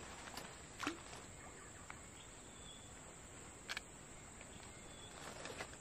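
A small splash about a second in as a cast fishing float and baited hook land on still swamp water, over a faint quiet outdoor background. A single light click a little past the middle.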